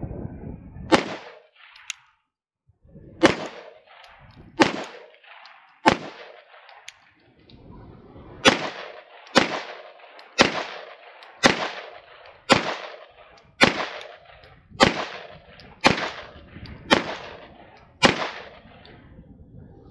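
Shadow Systems DR920 9mm pistol firing about fourteen single shots, each ringing out briefly. The first few are unevenly spaced, with a short lull, and the rest come at about one a second.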